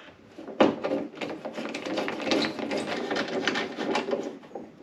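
Hand screwdriver turning a screw into the top of a 2004 Pontiac GTO's plastic front bumper cover: a dense run of small clicks and scraping, starting about half a second in.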